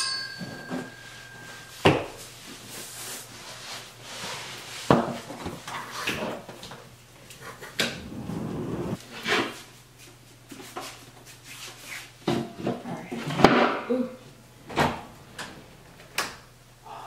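Irregular knocks, bumps and clatter of household items being handled and set down. It opens with a sharp metallic clank that rings briefly, and the loudest knocks come near the end.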